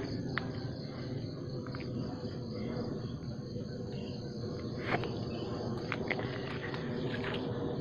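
Insects trilling steadily at a high pitch, with scattered short clicks and crunches from footsteps on dry grass and fallen leaves.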